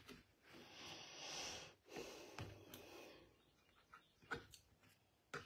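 Faint breathing: two soft, drawn-out breaths in the first three seconds, then a few faint clicks.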